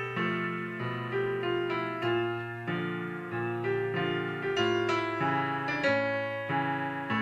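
Instrumental music: an M-Audio keyboard playing a piano sound in chords, with fresh chords struck about once a second, and an acoustic guitar playing along underneath.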